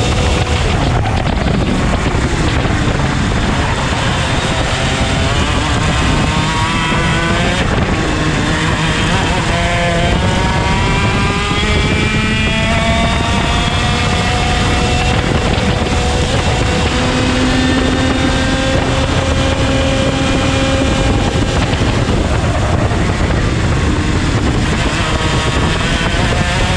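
IAME X30 125cc two-stroke kart engine running at racing speed. Its pitch climbs slowly through long stretches of acceleration and falls back sharply a couple of times as the revs drop.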